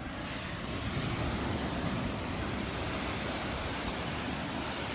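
Small Gulf waves washing onto the beach, with wind on the microphone: a steady, even surf hiss with no breaks.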